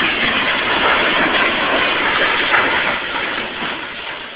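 Loud rushing din of a train derailment, the wrecked cars crashing and burning, dying away over the last second or so.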